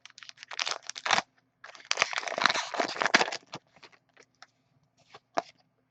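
Hockey card pack wrapper crinkling and rustling in two bursts as it is handled and opened, then a few light clicks as the cards are handled.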